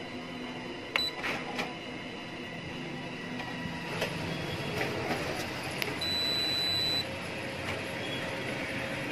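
Canon imageRUNNER 2525 copier running a copy job, a steady mechanical whir with a few sharp clicks as the paper is fed through, here without jamming. A high steady tone sounds for about a second, about six seconds in.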